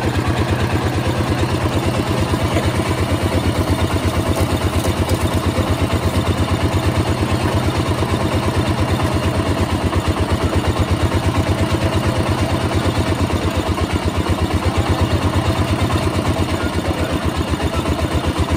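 Small engine driving a street sugarcane juice crushing machine, running steadily with a rapid, even thumping.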